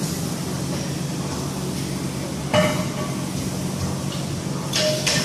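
Two sharp metallic clanks about two seconds apart, each with a short ring: barbell weight plates being handled at a plate rack. A steady gym hum runs underneath.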